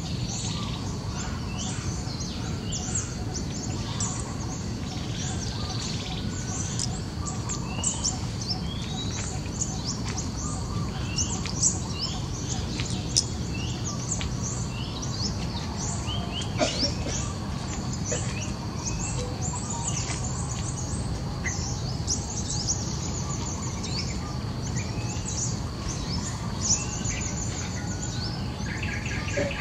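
Many small birds chirping, short quick rising calls overlapping one another, over a steady low rumble, with a few sharp clicks.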